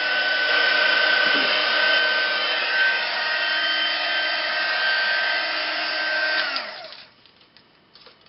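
Handheld craft heat gun blowing hot air to dry wet paint: a steady rushing hum with a high whine over it, switched off about six and a half seconds in and winding down.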